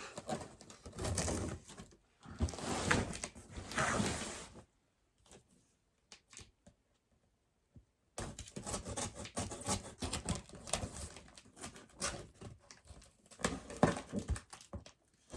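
Packaging rustling and crinkling as a parcel is unpacked by hand, with scattered clicks and taps; it stops for about three seconds midway, then starts again more quietly.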